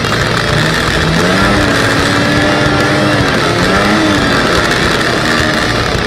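Two-stroke snowmobile engine running under way. Its pitch climbs about half a second in, holds steady, then rises again briefly near four seconds in as the throttle changes.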